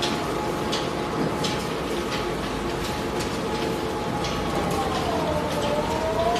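Industrial twin-shaft shredder and its feed conveyor running: a steady motor-and-gearbox whine with scattered irregular clicks and cracks. Near the end, one whining tone dips in pitch and climbs back.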